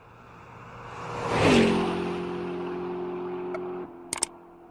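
An outro transition sound effect: a rising whoosh that peaks about a second and a half in and slides down into a steady held chord, which cuts off abruptly a little before four seconds in, followed by a couple of faint clicks.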